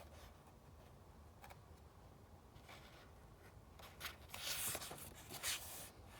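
Paper rustling as a book page is turned: a few soft paper ticks, then about two seconds of crisp rustling.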